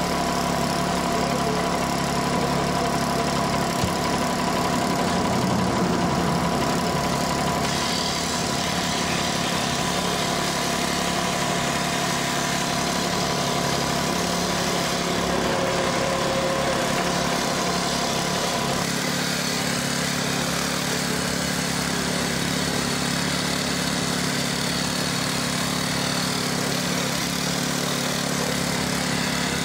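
An engine idling steadily, a constant drone, with one short click about four seconds in.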